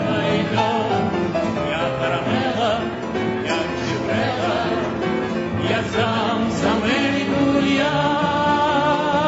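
A song performed with singing voices over instrumental accompaniment, the melody wavering and continuing without a break.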